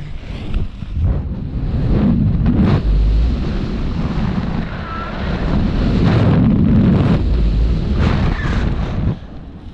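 Airflow of a paraglider in flight buffeting the camera microphone: a loud, gusting low rumble that swells and eases, dropping off just before the end.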